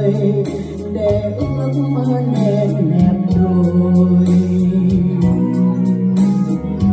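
Live music: a woman singing a slow Vietnamese ballad into a microphone, accompanied by a Yamaha electronic keyboard playing held bass notes over a steady programmed beat.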